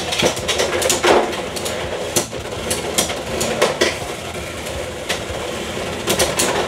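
Beyblade X spinning tops whirring and clashing in a plastic stadium, a steady hiss of spinning under a fast, irregular run of sharp clacks as the tops hit each other and the stadium wall.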